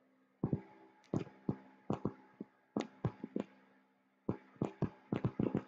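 Stylus tapping and clicking on a pen tablet or touchscreen while drawing: an irregular run of short, sharp taps, some in quick clusters, over a faint steady electrical hum.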